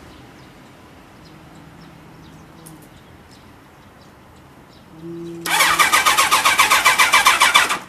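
Kawasaki GPZ1100's water-cooled four-cylinder engine being turned over by its electric starter for about two seconds, pulsing about six times a second, then stopping abruptly without firing. A brief hum comes just before the cranking starts.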